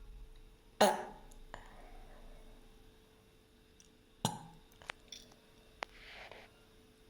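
A woman burping twice: a loud burp about a second in and a shorter, sharp one about four seconds in, followed by a few small clicks and a short breath near the end.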